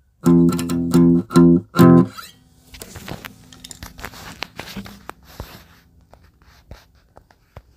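Four loud guitar chords struck in quick succession, ending about two seconds in. After them come faint scattered clicks and crackle.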